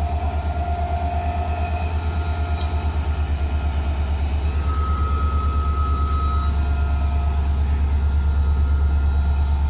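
Slow-moving freight train with a diesel locomotive: a loud, steady, pulsing low rumble, with faint thin squealing tones above it.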